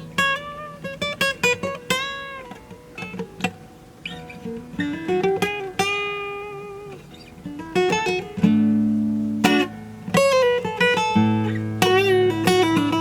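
Acoustic guitar played fingerstyle: single plucked notes and short runs, with low bass notes ringing under them about two-thirds of the way in and again near the end.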